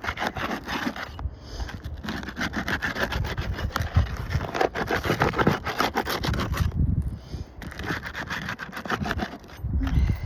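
A roof snake, a flat shingle-removal bar, scraping and grating under a three-tab asphalt shingle as it is worked toward the shingle's nail. The sound comes in spurts of rapid scratchy ticks with short pauses.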